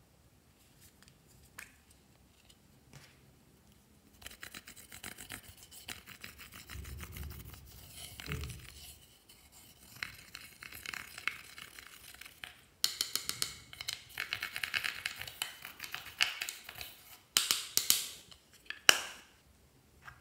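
A small tool scraping and crumbling a pan of pressed eyeshadow powder in its compact, in quick rough strokes. The scraping gets louder in the second half and ends in a few loud bursts.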